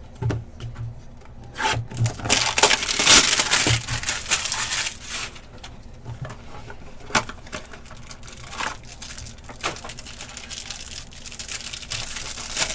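Crinkling and tearing of trading-card packaging as a Panini Select hanger box and its pack are opened: a long stretch of rustling and tearing about two to five seconds in, scattered clicks and taps of boxes and cards being handled, and more rustling near the end.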